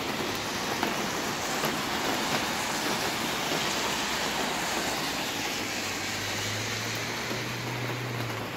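Steady heavy rain with wind, a continuous hiss. About five or six seconds in, the low hum of a vehicle's engine comes in under it.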